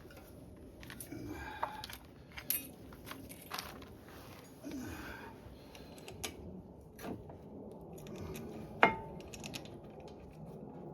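Metal tools and parts clinking and knocking: scattered clicks, with one sharp metallic clink that rings briefly about nine seconds in.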